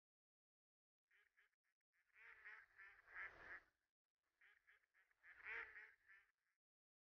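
Faint waterfowl calls in two short bouts, about two seconds in and again about five seconds in, with near silence between.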